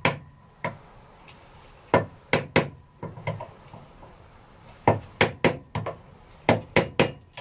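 About a dozen light hammer taps in small bunches, seating a snap ring in the bore of a motorcycle clutch master cylinder; they are kept gentle so the ring doesn't snap.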